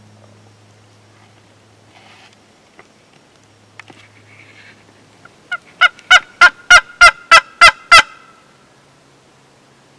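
Wild turkey yelping: a run of about nine loud, evenly spaced calls, roughly three a second, starting past the middle and stopping abruptly.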